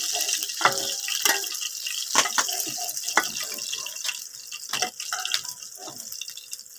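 Hot oil sizzling in a frying pan as fried fish pieces are lifted out, with scrapes and clicks of a steel spatula against the pan and a steel plate. The sizzle fades over the last couple of seconds.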